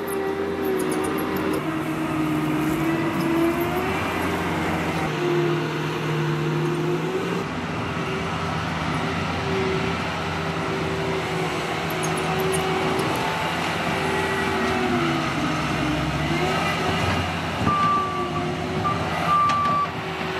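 Bobcat T76 compact track loader's diesel engine running under load as it digs and carries dirt, its pitch rising and falling, with occasional clanks. Its back-up alarm beeps a few times near the end.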